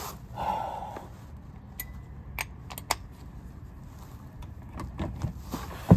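Metal hand tools clinking and knocking: a handful of separate sharp clicks as a socket and holding tool are shifted and fitted on the crankshaft pulley bolt.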